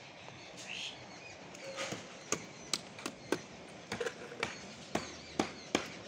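A hammer striking the wooden shuttering planks of a brick plinth beam: sharp separate knocks, irregular, about two a second, starting about two seconds in over outdoor background noise.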